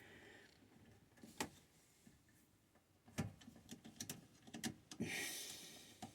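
A few scattered light clicks and knocks of hand tools and small parts being handled while working on a well pressure switch, with a short rustle about five seconds in.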